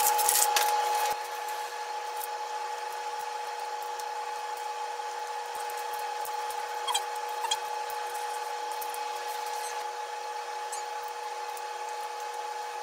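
Plastic cling film crackling as it is pulled off a styrofoam tray of red shrimp for about the first second. Then quieter, sparse crackles of shrimp shells being peeled off by hand over a steady hum.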